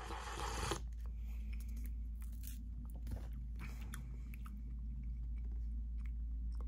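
Slurping hot broth from a cup of instant noodles, a steady hiss that cuts off less than a second in, then chewing a mouthful of noodles with small irregular clicks of the mouth.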